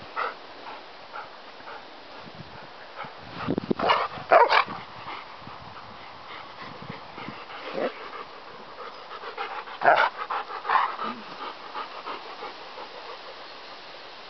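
Bernese mountain dogs at play, panting, with short loud outbursts from the dogs about four seconds in and again about ten seconds in.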